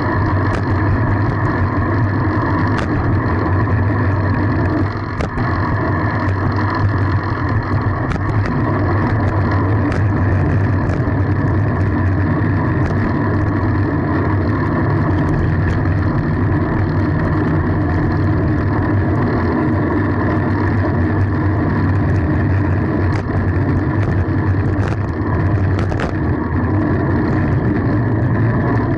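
Steady rumble of wind and road noise while riding a fixed-gear bicycle, with scattered light clicks and knocks.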